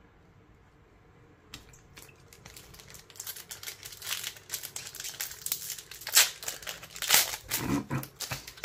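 Foil wrapper of a Pokémon TCG booster pack crinkling as it is handled and ripped open. The crinkling starts about a second and a half in, grows busier, and has its loudest sharp rips near the end.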